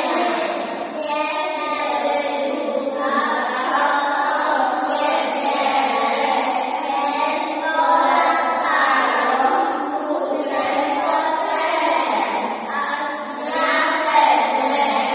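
A group of young children singing a song together, in phrases of a second or two with short breaths between.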